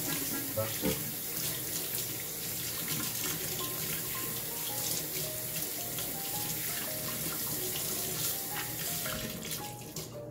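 Kitchen faucet running into a stainless steel sink, the stream splashing over hands being washed. The water shuts off just before the end.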